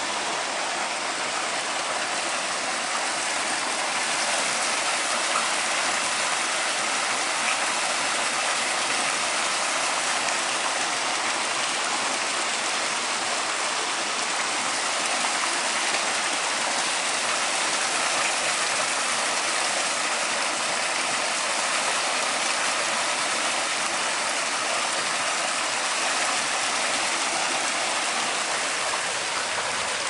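Water pouring steadily from an inlet pipe into a concrete trout pond, a constant rushing splash.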